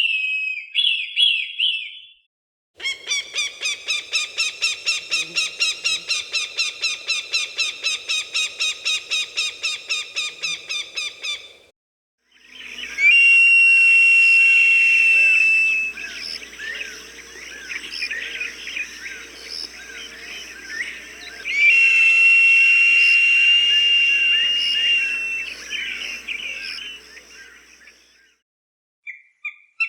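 Recorded hawk calls. A short call is followed by a fast run of sharp repeated notes, about four a second for some nine seconds. After a brief gap come two long, steady high screams, each about three seconds, with smaller bird chirps in the background.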